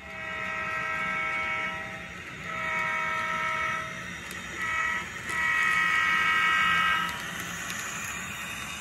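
HO scale model diesel locomotive's sound-decoder horn blowing the grade-crossing signal: two long blasts, one short, then one long, over a steady low engine hum.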